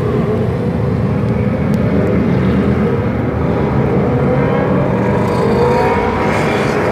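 Steady engine rumble and road noise from a moving vehicle travelling among a group of motorcycles. Engine pitch climbs from about four seconds in as the traffic speeds up.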